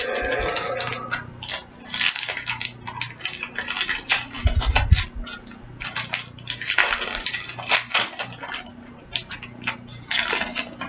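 Crinkling and crackling of a trading-card pack's wrapper being torn open and handled, in dense irregular crackles, with a few low thumps about four to five seconds in.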